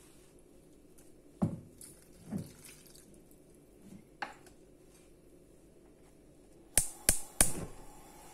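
Water dripping and plopping as a cupful of water is poured from a plastic measuring cup into a steel saucepan of flour. Near the end come three sharp clacks close together, as the cup is put down.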